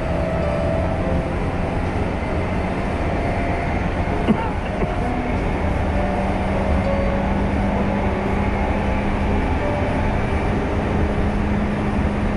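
A passenger train running steadily along the track, heard from inside the carriage: an even rumble with a faint steady hum, and one sharp click about four seconds in.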